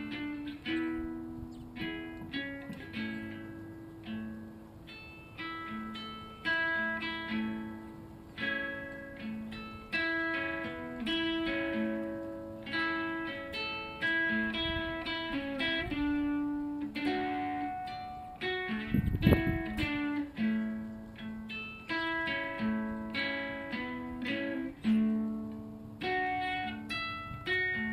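Instrumental music on a plucked electric ukulele, picking out a melody in ringing, decaying notes and chords. About two-thirds of the way through, a brief low thud cuts in.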